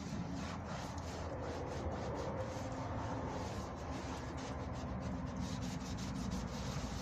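Hand sanding of filler primer on a car's front wing: abrasive paper on a block rubbing back and forth over the panel in repeated strokes, a steady rasping scrub.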